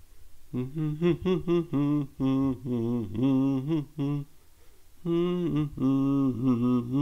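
A man's voice singing or humming a slow tune, unaccompanied, in phrases of held notes with short breaks.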